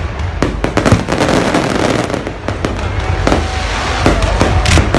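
Fireworks going off in a dense barrage: many sharp bangs and crackles in quick, irregular succession, overlapping over a continuous low rumble.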